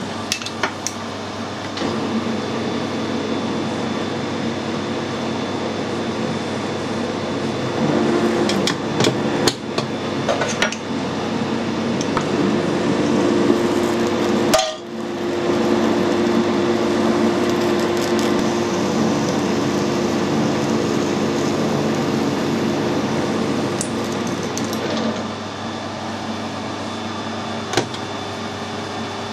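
Metal lathe running while a parting tool cuts into a hard steel bar, a steady machine hum and grind. Sharp clicks and knocks come through it, a few near the start, a cluster about a third of the way in, and more near the end, with a brief drop in the sound about halfway.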